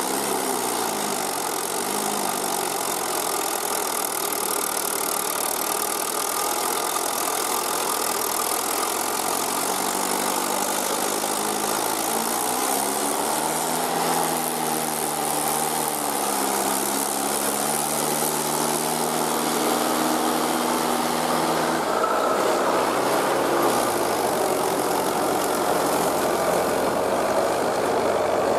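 Diesel engines of a Mahindra tractor and a backhoe loader running under load, the engine pitch rising and falling a few times as the tractor pulls a loaded trolley out of mud with the backhoe pushing.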